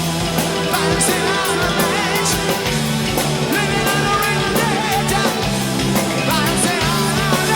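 Rock music with a sung vocal line, electric guitars and a steady drum beat.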